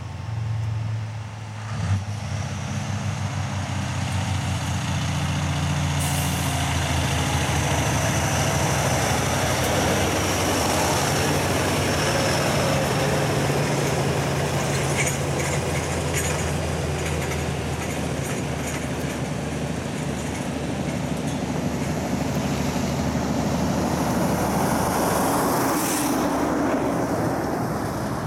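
Loaded log truck and trailer driving past, its diesel engine running steadily under load with tyre noise on the road.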